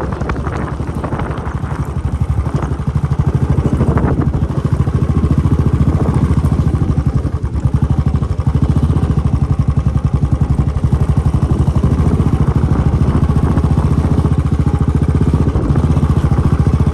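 A vehicle engine running steadily with a rapid, even pulse, as when travelling under way.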